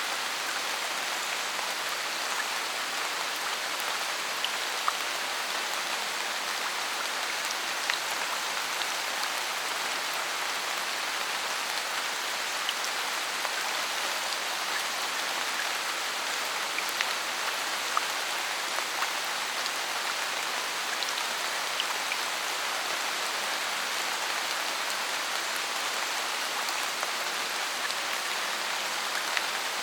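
Steady rain falling in a forest, an even hiss of rain on leaves and ground with scattered individual drops ticking through it.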